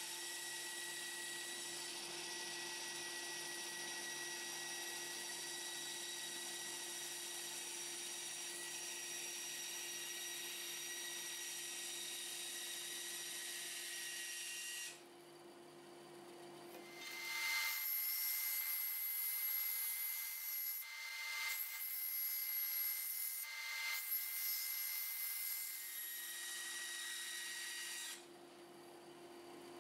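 Benchtop bandsaw running steadily while cutting 3 mm aluminium plate, its sound dropping away briefly twice, with a louder, uneven stretch in the middle.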